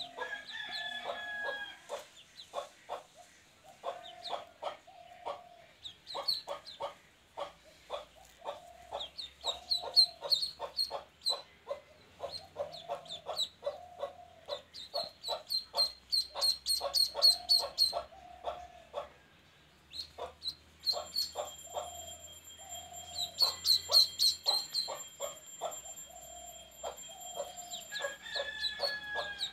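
Duckling peeping in quick runs of high peeps, over repeated low clucking from chickens.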